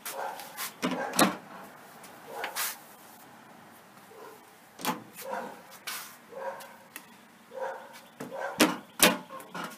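Painted inset cabinet door being swung shut and pulled open again, several sharp clicks and knocks as the double roller catch snaps the door closed and lets it go. The loudest clicks come about a second in and again near the end.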